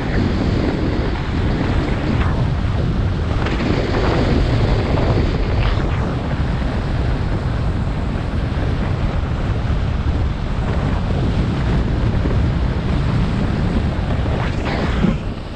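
Wind buffeting a helmet- or body-mounted GoPro Hero 7 Black's microphone during a snowboard run: a steady loud rush with a heavy low rumble, mixed with the snowboard sliding over snow, which swells louder several times. The rush drops off suddenly near the end.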